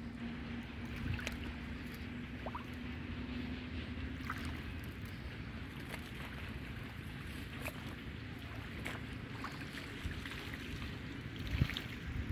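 Outdoor ambience dominated by wind rumbling on the microphone, with a faint steady hum that fades out about four seconds in. Scattered small clicks run through it, and a soft thump comes near the end.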